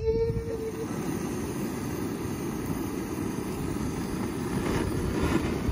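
A handheld gas torch burner on a canister, running with a steady rushing roar as it is used to light a campfire.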